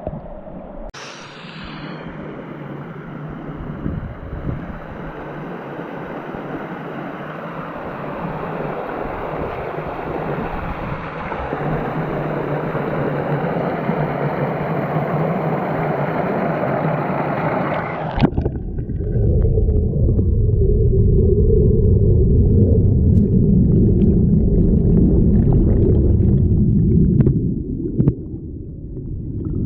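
Forest-stream water rushing over small waterfalls, a steady splashing rush that grows louder. About 18 s in it turns abruptly into a low, muffled rumble and gurgle as the microphone goes under the water.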